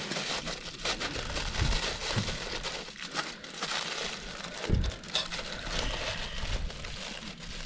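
Crinkling and crunching handling sounds with scattered light knocks, and one duller thud about two thirds of the way through.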